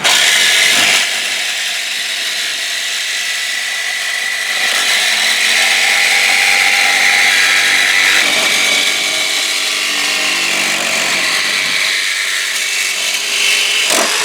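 Handheld power saw starting suddenly and cutting steadily along an edge, a continuous high rasping whine.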